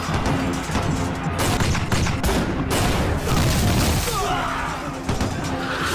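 Background music over battle sound effects: a dense run of bangs, blasts and crashes.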